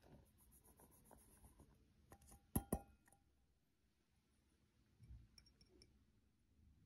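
Bread flour poured from a metal bowl into a plastic bowl with a soft patter, then two sharp clinks of bowl against bowl about two and a half seconds in. Near the end come faint ticks as salt is tipped in from a small ceramic bowl.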